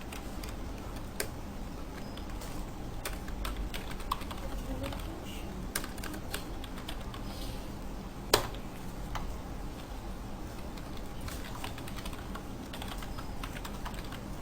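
Computer keyboard typing: scattered key clicks at an irregular pace, with one louder keystroke about eight seconds in, over a faint steady hum.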